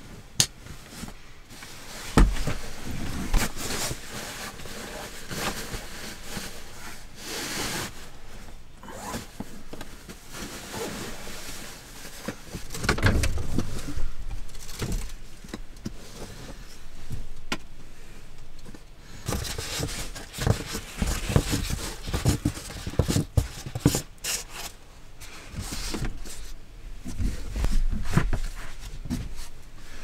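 A sleeping bag and blanket being pulled out and spread by hand in a small cabin: fabric rustling and swishing in uneven spells, with scattered knocks and thumps.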